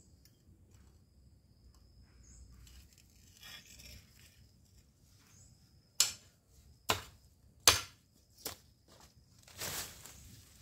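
Garden hoe chopping into soil and weeds: four sharp strikes about a second apart starting about six seconds in, then a longer scrape.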